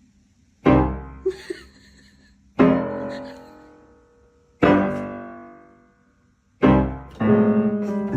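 Piano music: four loud chords struck about two seconds apart, each left to ring and fade.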